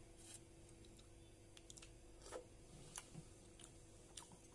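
Faint, scattered mouth clicks and smacks of someone chewing idli, over a low steady room hum.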